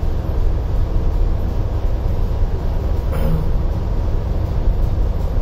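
Steady low rumble of a ship's running engine-room machinery, heard inside the engine control room while the main engine is running.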